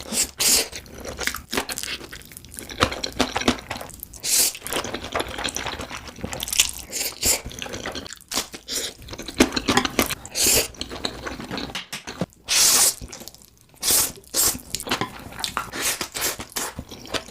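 Close-miked eating: a person biting and chewing food, with many short crunchy bites in quick, irregular succession.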